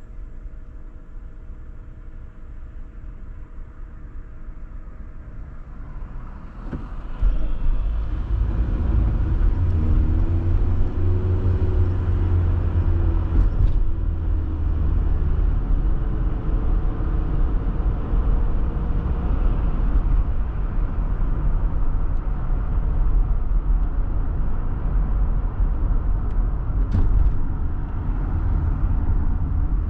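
Car noise heard inside the cabin: a faint steady hum while the car stands still, then about seven seconds in it pulls away and a loud low rumble of engine and road noise sets in. The engine tone rises as the car speeds up, then the rumble holds steady while it cruises.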